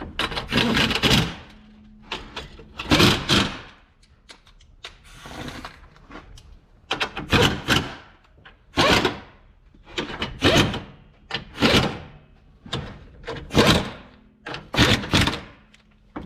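A string of about ten short knocks and clatters, a second or two apart, from tools and parts being handled during reassembly of the car's front end.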